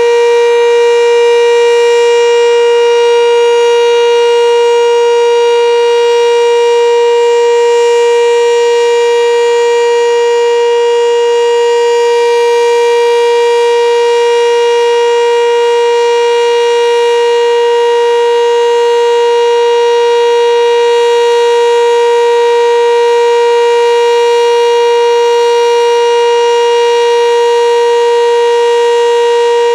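Sentry 7V8 outdoor warning siren at full speed, sounding a steady alert tone for a monthly tornado-siren test. It is one loud, held pitch with many overtones and does not rise or fall.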